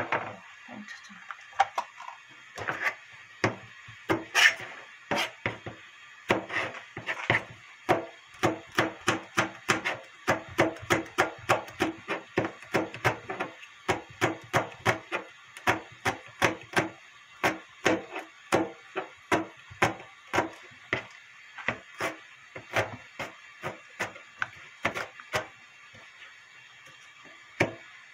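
Kitchen knife slicing green chili peppers on a plastic cutting board: quick, even chopping strokes about two or three a second, scattered at first and stopping a few seconds before the end.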